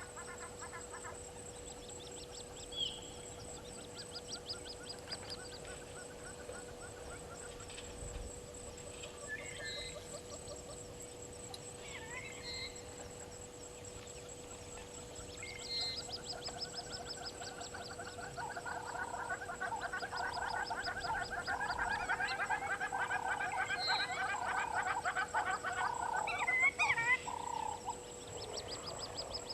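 Wild animal calls, a mix of birds and possibly frogs: scattered chirps and rapid trills, building in the second half into a louder, continuous chattering chorus that drops away near the end.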